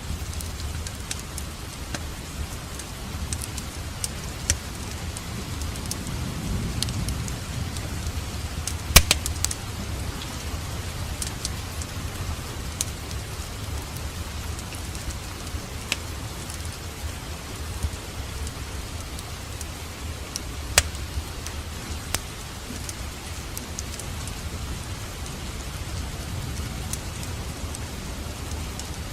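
Wood fire burning in a fireplace: a steady low rumble of flames with scattered crackles and pops, two of them louder, about nine and about twenty-one seconds in.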